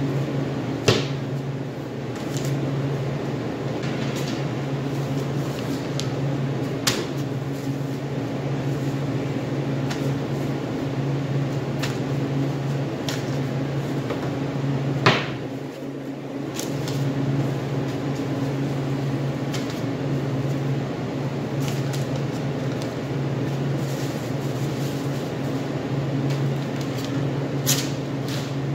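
A steady low machine hum, broken by a few sharp knocks and clatters, the loudest about halfway through, as raw bone-in rib steaks and sheets of paper are laid on a display tray.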